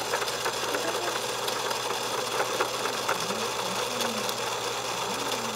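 Small electric motor of an egg-spinning decorator running with a steady whirr and light ticking.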